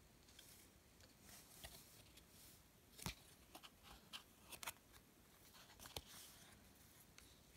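Paper hang tags and laminated card bookmarks handled on a table: faint rustling with a few light clicks, the sharpest about three seconds in and again about six seconds in.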